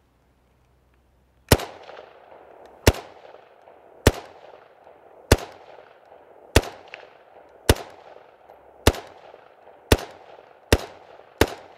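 Ruger Mini-14 semi-automatic rifle fired ten times, about a second apart, each shot followed by a short echo. The shots begin about a second and a half in and come a little faster near the end.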